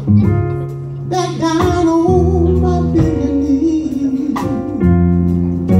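A live gospel solo: one singer's voice holding and bending long notes over instrumental accompaniment of sustained low chords that change every second or two.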